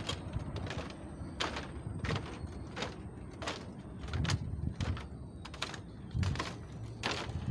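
Footsteps on wooden boards, at a steady walking pace of about three steps every two seconds, each a short hollow knock.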